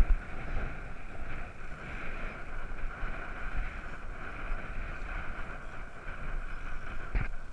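Steady rushing noise of wind on the microphone and choppy river water moving around a small boat's hull, with a light knock near the end.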